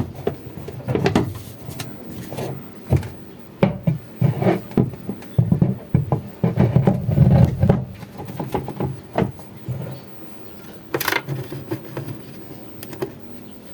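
A string of irregular knocks, clunks and taps of hard objects being handled, thickest in the middle, with a sharp click a few seconds before the end.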